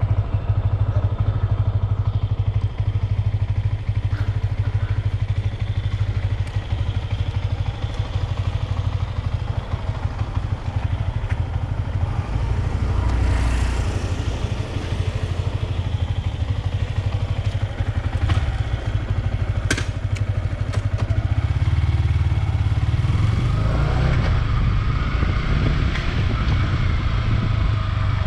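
Yamaha R15 V3's 155 cc single-cylinder engine running steadily, picking up revs about three-quarters of the way through.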